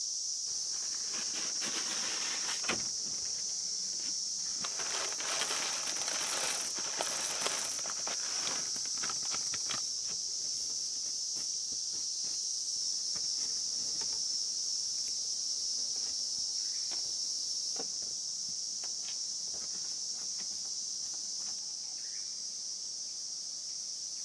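Insects chirring steadily in a high, even drone. For the first ten seconds or so there is irregular rustling and crackling, like steps or handling in dry leaves, which then thins to a few scattered clicks.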